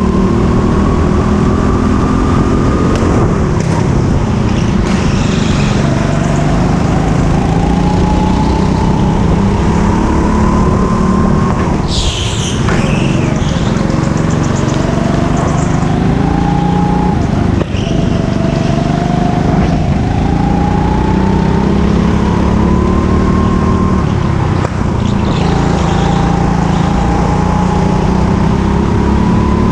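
Go-kart engine heard from onboard, its pitch climbing steadily along each straight and dropping off into each corner, six or seven times over. About twelve seconds in there is a brief high screech.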